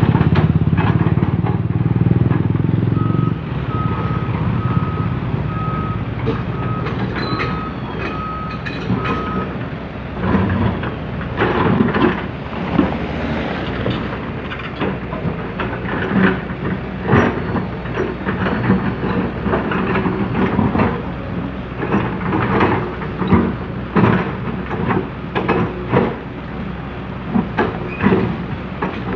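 Komatsu PC200CE excavator's diesel engine running, loudest for the first few seconds. From about three seconds in, a warning alarm beeps at a steady pitch about once a second for some six seconds, then frequent clanks and knocks of the bucket working in soil continue over the engine.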